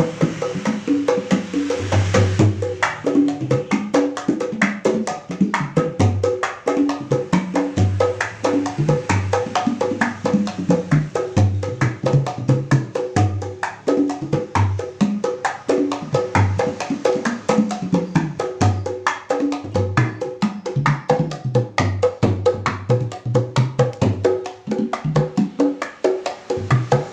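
A mini Sundanese jaipong kendang set, a large two-headed barrel drum with two small kulanter drums and metal ring tensioning, played by hand in a fast, continuous jaipong rhythm. Deep low strokes come in recurring runs, mixed with sharp higher slaps.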